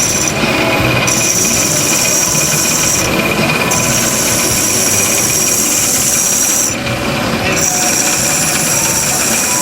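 Power drill with a core bit drilling into glass. It runs steadily, with a high grinding hiss that comes and goes in three stretches of a few seconds each, broken by short pauses.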